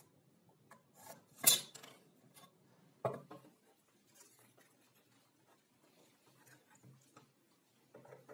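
Wooden block and tools handled on a wooden workbench: two sharp knocks as things are set down, the first the loudest, among soft rubbing and small taps. Near the end a few small clicks as a one-handed bar clamp starts to tighten.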